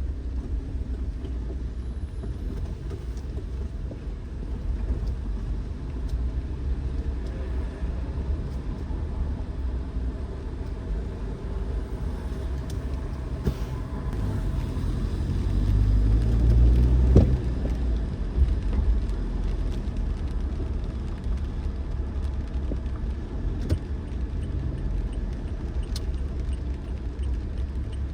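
Car driving along a road: a steady low rumble of engine and tyres that swells louder about halfway through, with a brief knock at the loudest point.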